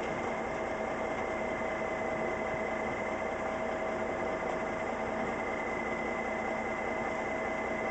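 Western Star dump truck's diesel engine idling steadily, with a constant whine held over the engine noise.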